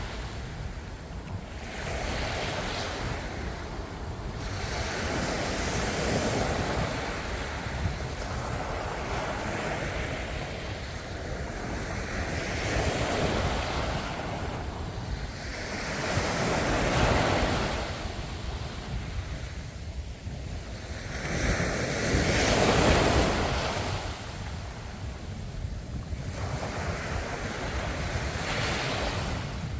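Ocean waves breaking and washing on the shore, swelling and falling back every few seconds, with wind noise on the microphone.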